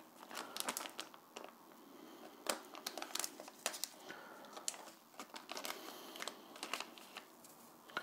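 Anti-static bag wrapped around a new laptop hard drive crinkling as it is handled, a string of irregular crackles.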